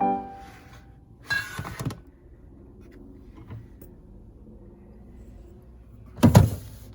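A musical note fades at the start, a short clatter follows a little over a second in, then a low steady hum, and a loud thud about six seconds in.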